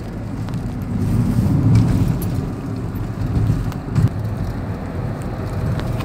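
Car driving along, heard from inside the cabin: a steady low rumble of engine and tyres on the road, with a brief bump about four seconds in.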